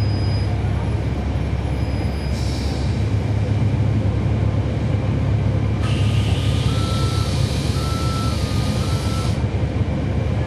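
A 2012 NABI 40-SFW transit bus with a Cummins ISL9 straight-six diesel, heard from inside the cabin: the engine drones steadily. About two seconds in there is a short hiss of air, and from about six to nine seconds a longer air hiss with a beeping tone that steps between two close pitches.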